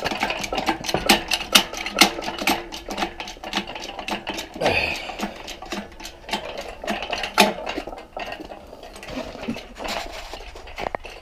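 Handling noise around a hydraulic engine crane holding an engine: a run of dense, irregular metallic clinks and knocks, with footsteps crunching on gravel.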